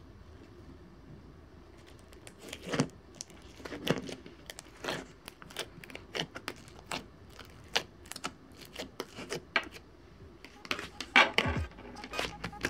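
Fingers poking, squeezing and stretching a sticky rainbow chip frosting slime in a plastic tub, making irregular wet clicks and pops that start about two seconds in.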